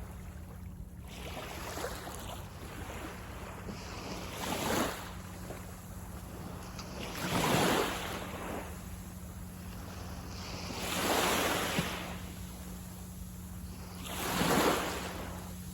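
Small sea waves breaking and washing up the beach, four swells about three to four seconds apart, each rising and falling away, over a steady low rumble.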